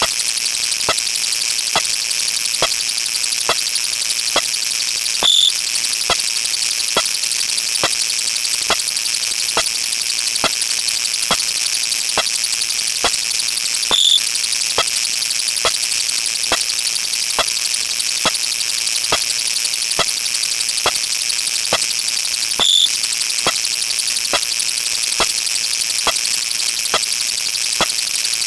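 Synthetic counter sound effects: regular electronic clicks about two a second over a constant high buzzing hiss, with a short, louder high beep three times, roughly every nine seconds.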